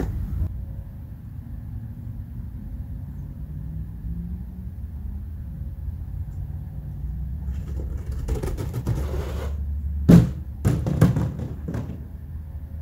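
Steady low rumble, with a rustling, scraping noise about eight seconds in, then a loud knock a little after ten seconds and a few more knocks close behind it.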